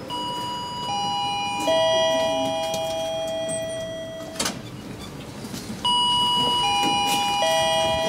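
Elevator arrival chime: three ringing tones, each lower than the last, sounding twice. A sharp click comes between the two chimes.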